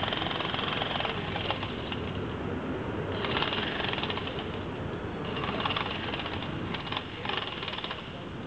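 Mini excavator's engine running, with three bursts of rapid hammering rattle, each about a second long, the first about three seconds in.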